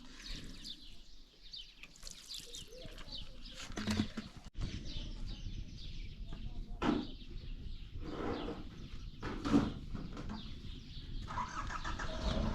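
Small birds chirping over and over in quick, short falling notes, with a few louder sudden sounds standing out.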